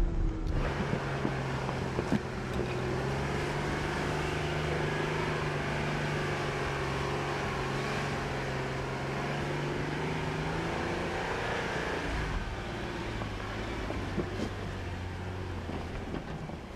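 Jeep Gladiator Rubicon's engine running steadily as it drives a dirt trail, its note stepping lower about twelve seconds in.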